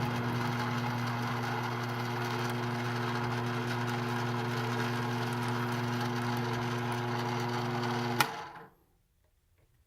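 Mini lathe running with a steady motor hum, switched off with a click about eight seconds in and spinning down to quiet within a second.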